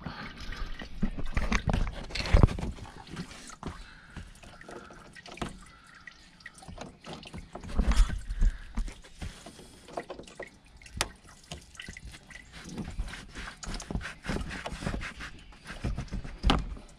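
Antifreeze coolant dripping and trickling from the radiator into a plastic drain pan, with irregular clicks and knocks from pliers working the lower radiator hose's spring clamp. The loudest knocks come about two and a half seconds and eight seconds in.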